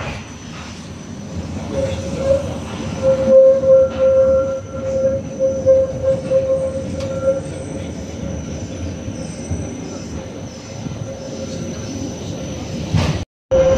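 Tram running on its rails with a low rumble, its wheels squealing on the curving track in a steady high tone from about two seconds in. The sound cuts off abruptly for a moment near the end.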